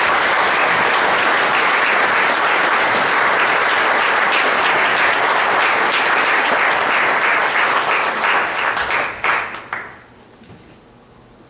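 Congregation applauding steadily, thinning to a few scattered claps and stopping about ten seconds in.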